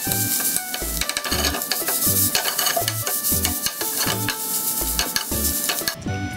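Garlic rice frying and sizzling in a frying pan, stirred and scraped with a metal ladle, over background music. The sizzling stops suddenly near the end.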